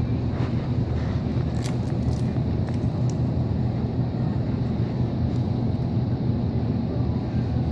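Steady, muffled low rumble of a phone microphone rubbing against pocket fabric while its owner walks, with a few faint clicks.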